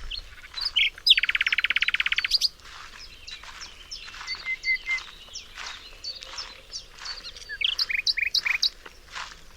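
Several songbirds singing and chirping. About a second in, a loud, fast trill runs for just over a second, followed by scattered short chirps and whistles and a quick series of repeated notes near the end.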